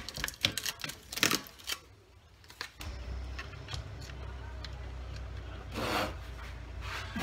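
Card template rustling and clicking as it is peeled off a steel letterbox. Then a cordless drill runs steadily, drilling an 8mm hole through the letterbox's thin sheet steel, briefly louder about six seconds in.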